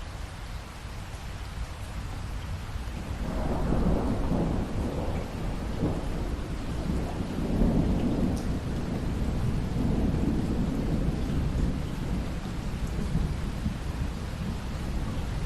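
Steady rain with a long roll of thunder that builds about three seconds in, rumbles on for several seconds and slowly fades.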